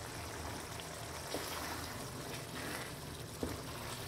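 Pan of chana dal simmering on a low flame, a soft steady bubbling of the thick, nearly cooked lentils, with a few faint taps of a wooden spoon toward the end.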